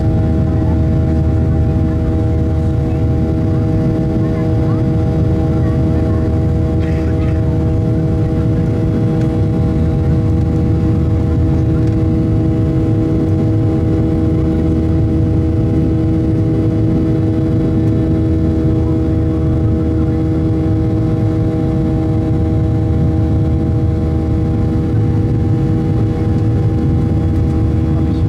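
Inside the cabin of a Boeing 737-800: the steady drone of its CFM56-7B jet engines, a low rumble with several steady hums on top, holding an even pitch and level throughout.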